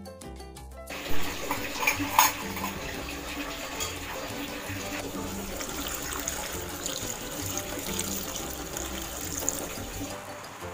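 Water poured and splashing over raw chicken feet in a plastic basin, a steady splashing with a few sharp knocks about one and two seconds in.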